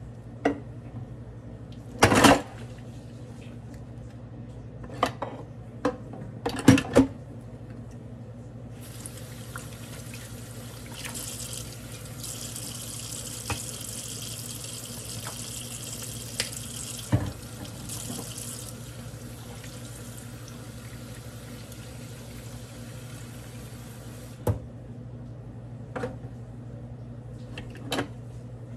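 Kitchen tap running into a stainless steel sink for about fifteen seconds while a lid is rinsed under the stream. Before and after it come sharp knocks and clunks of a bottle and dishes being handled in the sink.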